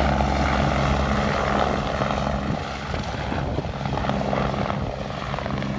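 Twin-engine helicopter flying away low after takeoff: steady rotor and engine noise whose low hum breaks up about halfway through as the sound eases off a little.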